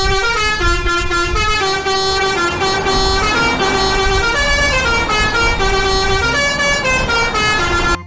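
A truck's multi-tone musical horn playing a quick stepping tune over steady engine and road rumble.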